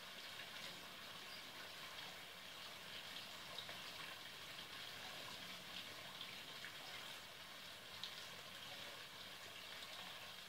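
Faint, steady hiss of water, with a few small ticks scattered through it.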